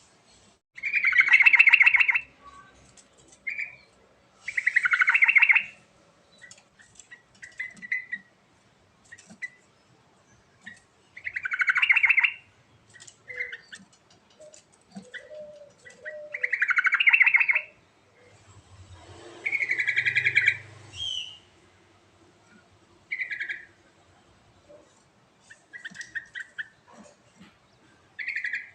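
Yellow-vented bulbul (trucuk) singing: five loud, bubbling phrases of about a second each come a few seconds apart, with short, softer notes between them.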